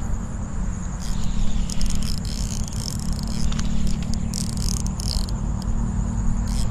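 Crickets trilling steadily over a low wind and handling rumble on the camera microphone. A few short whirring bursts come from a baitcasting reel while a hooked fish pulls on the rod.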